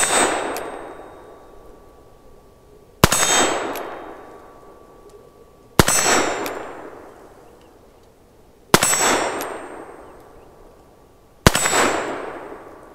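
Five shots from a Ruger Security Six .357 Magnum revolver, the first right at the start and the rest about three seconds apart. Each loud crack is followed by a long fading echo and the ringing ding of the steel target being hit.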